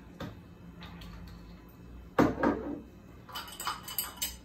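A knock about two seconds in, then a stainless-steel funnel clinking against the glass neck of a liter bottle as it is handled and lifted out: a string of light metal-on-glass clinks.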